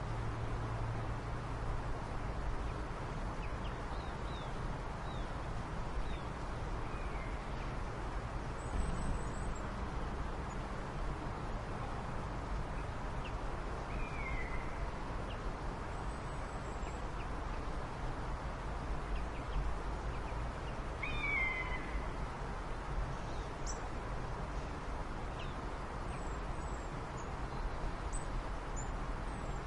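A steady rumble and hiss, with a few short, falling animal calls now and then and some faint high chirps.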